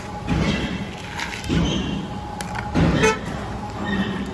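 A vehicle horn toots briefly about three seconds in.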